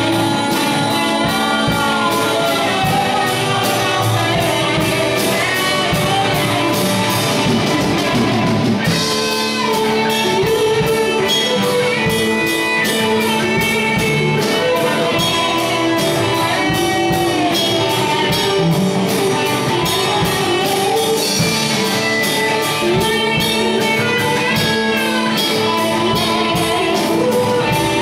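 A live rock band playing loudly: electric guitars over a drum kit keeping a steady beat, with a man singing.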